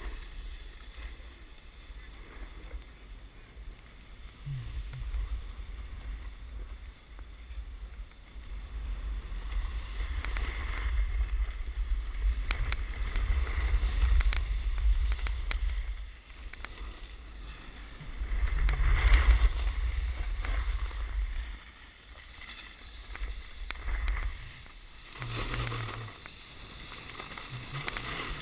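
Wind buffeting a GoPro action camera's microphone as its rider moves down a ski run, a low rumble that surges and fades and is loudest about two-thirds of the way through, over the hiss and scrape of a snowboard sliding on packed snow.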